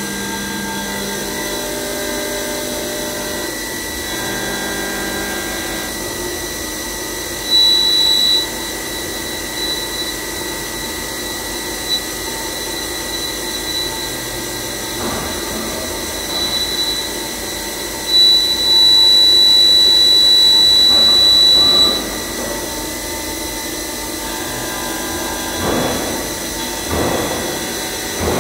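CNC vertical machining center's spindle and end mill cutting during a finishing pass on a metal dome-shaped core, a steady machine hum with several fixed tones. A loud high-pitched whine from the cut comes in briefly about a quarter of the way in, and again for about four seconds a little past the middle.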